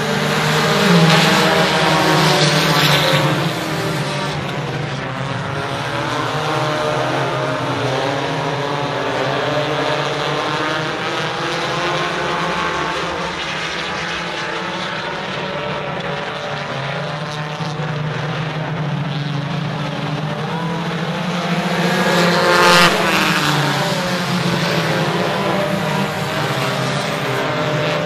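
A field of dirt-track stock cars racing around the oval, their engines revving and droning together. The pack comes past loudest in the first few seconds and again about three-quarters of the way through.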